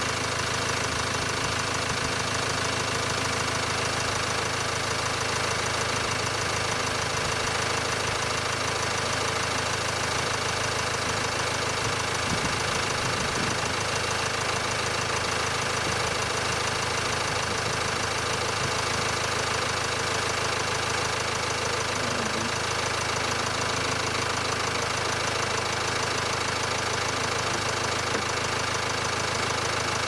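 Land Rover Discovery Sport engine idling steadily, heard from close by under the open bonnet.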